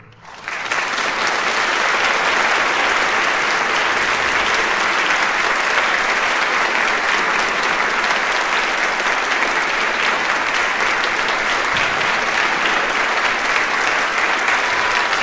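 Audience applauding, breaking out about half a second in and continuing steadily and densely.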